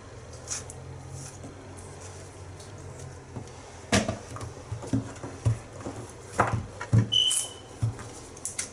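A hand handling bananas in a clear plastic bowl: a sharp knock about four seconds in, then scattered light knocks and rubbing as a banana is lifted out, with a brief high squeak near the end. A low steady hum runs underneath.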